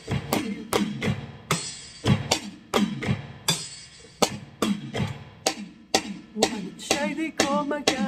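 A drum kit played with sticks in a steady beat, about three hits a second, with low drum thumps and cymbal hiss. A woman's singing voice comes back in near the end.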